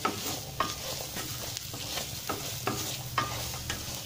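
Chickpea sundal sizzling as it is sautéed in oil in a steel pan on medium flame, with a spatula stirring and scraping it and clacking against the pan about every half second to second.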